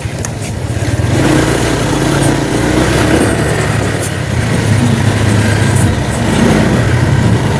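A vehicle engine running steadily while travelling, growing louder about a second in, with road and air noise.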